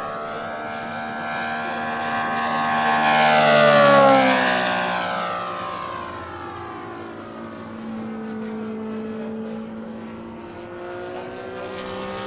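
Radio-controlled scale warbird model flying past overhead, its engine and propeller growing louder to a peak about four seconds in, then dropping in pitch and fading as it passes. The sound swells again near the end as the model comes round.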